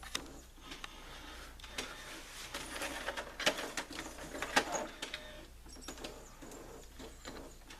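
Brother inkjet printer mechanism running, with irregular clicks and short whirring stretches.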